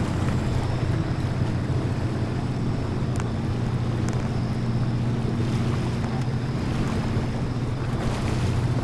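Jet ski engine running steadily underway, a constant low drone with water rushing past the hull and wind on the microphone.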